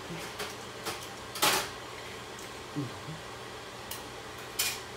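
Metal food cans and their cut lids clanking and clicking as they are handled at the stovetop: a handful of short knocks, the loudest a brief clatter about one and a half seconds in.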